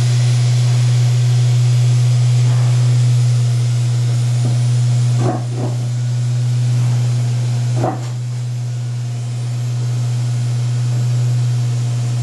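A desktop CNC mini milling machine's 300 W air-cooled spindle running with a steady, loud hum, with a few brief sounds about five and eight seconds in.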